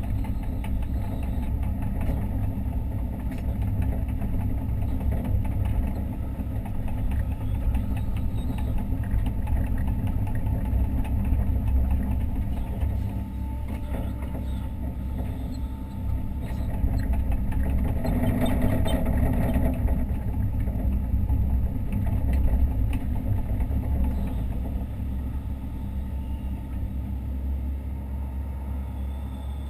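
Hitachi Zaxis 130 excavator's diesel engine and hydraulics running steadily, heard from inside the operator's cab, with a louder, brighter stretch about two-thirds of the way through.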